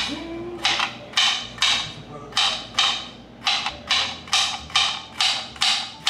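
Kitchen knife chopping food on a cutting board in a steady rhythm, about two or three cuts a second.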